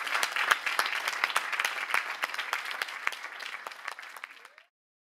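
Audience applauding, a dense patter of many hands clapping that fades down and cuts off about four and a half seconds in.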